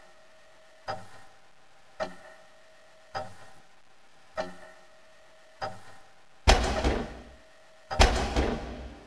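Slow, regular clock-like ticking, one stroke about every 1.2 seconds, each with a short ringing tone. About six and a half and eight seconds in, two loud heavy impacts with long rumbling decays cut across it.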